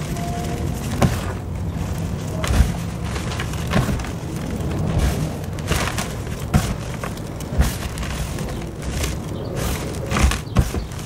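Hands crushing and rubbing dry powdery clay: a continuous gritty rustle with many sharp crunches at an uneven, hurried pace, played sped up.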